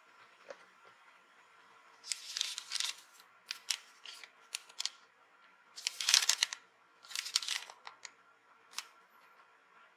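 Clear plastic packaging bag crinkling as it is handled, in several short bursts, the loudest about six seconds in.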